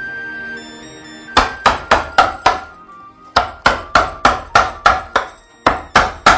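Soft background music fades out about a second in, then a wooden mallet strikes a wood-carving gouge into a block of wood in quick runs of sharp knocks, about four a second, with short pauses between the runs.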